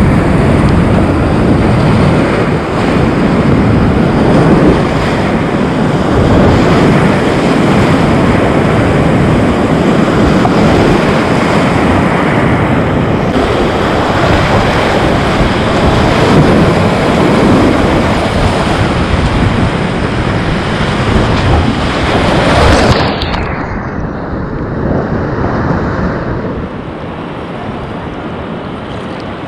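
Loud rush of whitewater rapids close around a kayak running the river. About 23 seconds in it drops abruptly to a softer, duller rush as the boat reaches calm water below the rapid.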